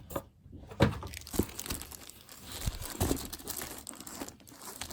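Plastic packaging wrapper crinkling as it is handled, with a few sharper crackles.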